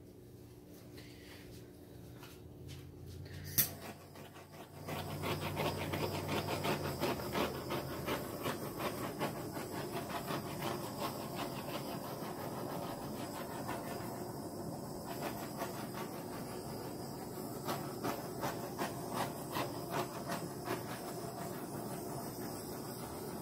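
A small handheld torch's flame hissing steadily as it is passed over wet acrylic pour paint to pop air bubbles, starting about five seconds in after a single sharp click.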